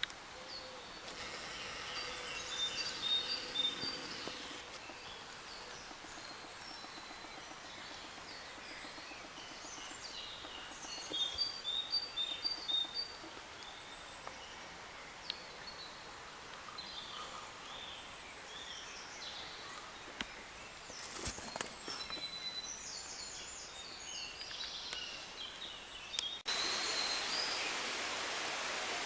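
Small birds chirping and singing in short repeated phrases over quiet outdoor background hiss, with a brief crackle about two-thirds of the way through. Near the end the sound switches abruptly to a steady rushing noise.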